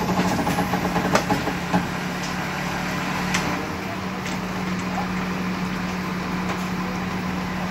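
Heavy truck diesel engine running steadily at a constant low hum, with a few sharp clicks and knocks in the first couple of seconds and another a little past the middle.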